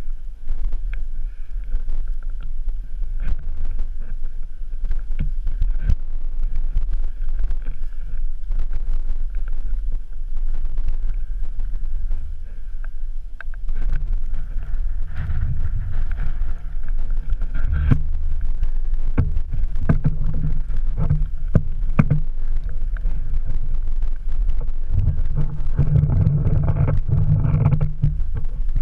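Wind buffeting an action camera's microphone: a steady low rumble that grows stronger in the second half, with scattered short clicks and knocks.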